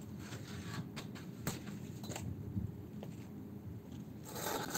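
Faint outdoor ambience: a low steady rumble with a few scattered small clicks, rising to a rustling hiss near the end.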